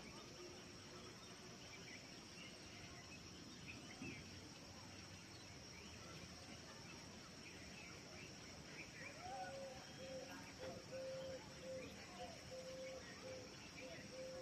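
Faint forest-edge ambience: a steady high insect drone with scattered short bird chirps. From about nine seconds in, a low call repeats as a string of short notes.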